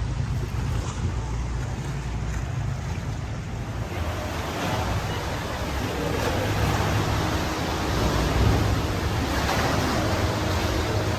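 Sea water washing and splashing around a tour boat over the steady low hum of its engine, with wind on the microphone. The water noise grows louder about four seconds in.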